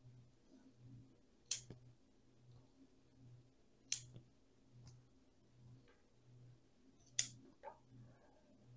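Pruning shears snipping through small stems of a dwarf jade (Portulacaria afra): three sharp snips a few seconds apart, with a couple of fainter clicks after the second and third.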